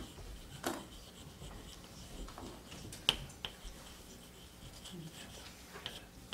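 Quiet room tone with faint rustling and a few short, sharp clicks, the loudest about three seconds in.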